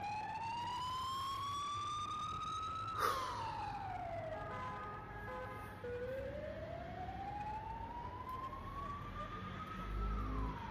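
Emergency-vehicle siren wailing, its pitch rising slowly over about four seconds and then dropping quickly, twice. A short sharp click comes about three seconds in, at the top of the first rise.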